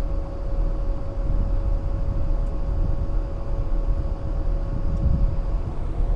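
Steady drone of a rooftop HVAC unit running, with a constant hum tone over a low rumble.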